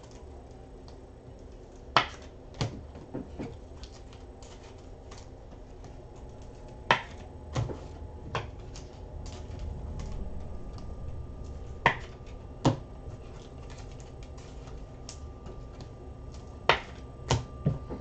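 About a dozen sharp, scattered taps and clicks of things being handled and set down on a desk, some in quick pairs, over a low steady background hum.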